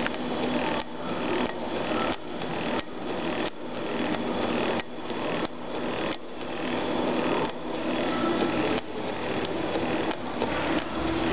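Keilmann RS530 two-needle stitching head sewing through a carbon-fibre preform: a busy mechanical clatter that repeats in even cycles, with a brief dip about every two-thirds of a second.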